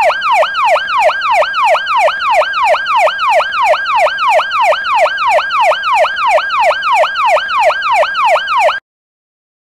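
Siren sound effect: a fast, repeating falling wail, about three or four sweeps a second, that cuts off suddenly near the end.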